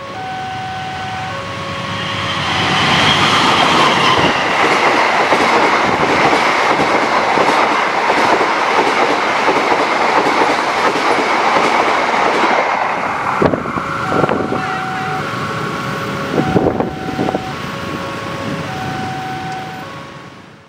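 A CC 206 diesel-electric locomotive and its passenger coaches pass at speed over a level crossing. The rushing noise of wheels on rail builds within the first few seconds, clatters over the rail joints as the coaches go by, and eases near the end with a few sharp knocks. Throughout, the crossing's electronic warning bell sounds an alternating two-tone chime.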